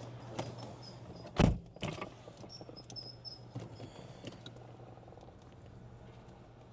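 A car door shut with one heavy thump about a second and a half in, followed by a lighter knock, over the steady low hum of the car running.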